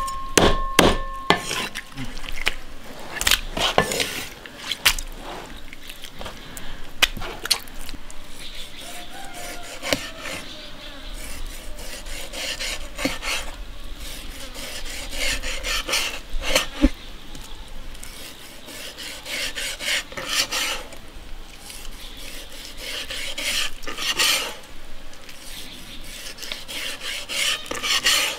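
Cleaver chopping through a fish backbone on a plastic cutting board, a few sharp strokes in the first second or so, then the blade scraping and tapping against the board as the fillet is sliced into thin pieces.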